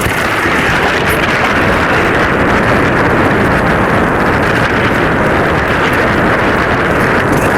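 Wind buffeting the microphone aboard a Hobie Cat 16 catamaran under sail: a loud, steady rushing noise with no break.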